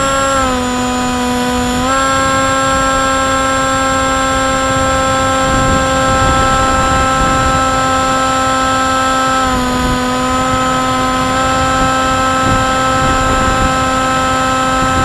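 RC wing's electric motor spinning an APC 6x4E propeller, a steady buzzing whine whose pitch dips briefly twice, about half a second in and again near ten seconds in, as the throttle eases. Under it, wind rushes across the onboard microphone.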